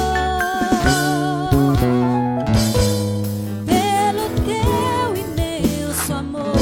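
Gospel band of drum kit, keyboard, bass and acoustic guitar playing a slow song, with a woman's voice singing the melody with vibrato over it.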